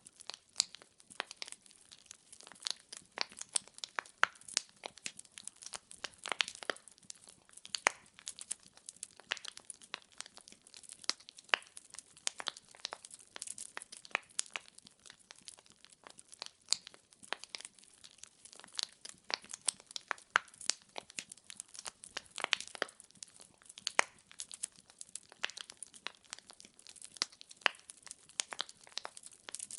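Burning firewood crackling: dense, irregular sharp pops and snaps over a soft hiss of the flames.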